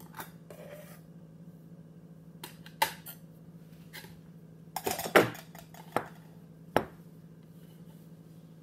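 Sharp clinks and knocks of a titanium camping mug and a metal pot gripper as the mug is lifted out of its stove setup and set down. Single knocks come early on and near the middle, a loud cluster of knocks about five seconds in, and two more single knocks after it, over a steady low hum.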